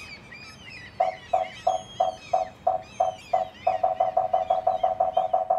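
A run of short, same-pitched electronic beeps, about three a second, speeding up to about six a second partway through, with faint bird chirping behind.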